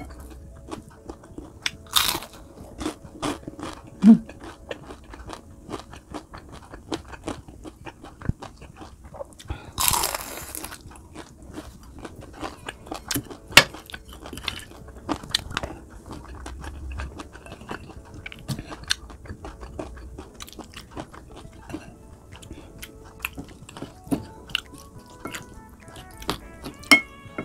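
Close-up chewing and crunching of crispy fried fish, bones included: many sharp crunches, with one louder burst of crunching about ten seconds in. Soft background music plays underneath.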